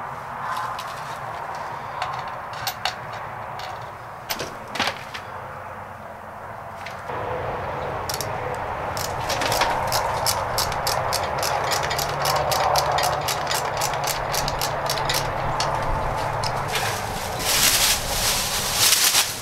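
A ratchet wrench clicking in quick, even strokes at the centre hub of a chicken plucker's plate, after a few sharp metal knocks. Plastic wrap rustles loudly near the end.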